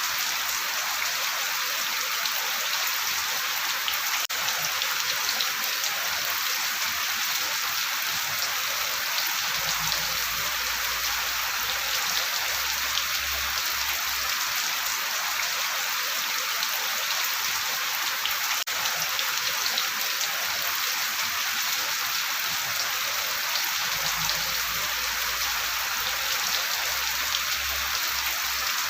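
Steady rain: an even hiss with individual raindrops ticking on a surface.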